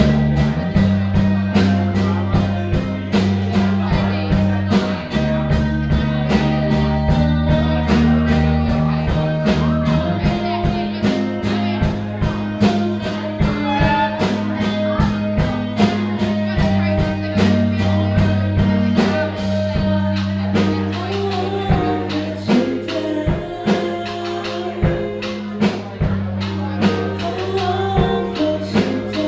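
A live rock band playing: two electric guitars, a bass guitar and drums keeping a steady beat.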